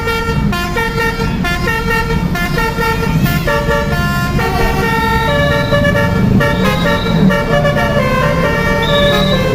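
Basuri telolet bus horn playing a quick melody of short, pitched horn notes that change several times a second, over a low engine rumble.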